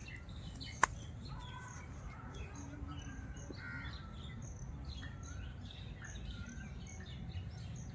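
Birds chirping and calling with short, scattered notes, crows among them. A single sharp click about a second in.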